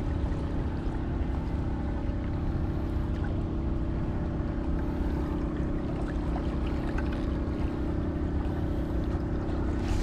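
Boat engine running steadily: a low, even hum with a fixed tone that does not change.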